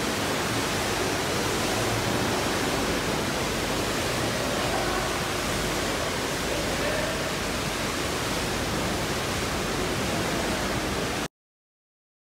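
Steady rushing noise of water circulating in a large aquarium tank, heard from above its open surface, cutting off suddenly near the end.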